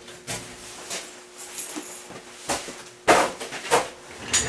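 Husky 61-inch tool chest and rolling cabinet, a heavy steel unit full of tools, being rolled on its casters across a concrete floor, with scattered rattles and knocks and a few loud thumps a little past three seconds in.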